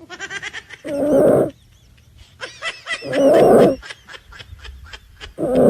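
Snoring in a comic rhythm: a quick run of high, squeaky whistling pulses, then a loud rasping snore. The pattern comes three times, with the last snore near the end.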